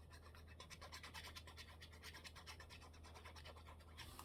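Faint, rapid scratching strokes of glue being spread onto paper, over a low steady hum.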